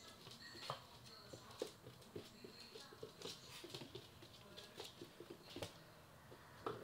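Labrador puppy's claws clicking and pattering on a laminate floor as it walks about: light, irregular taps, a few louder than the rest.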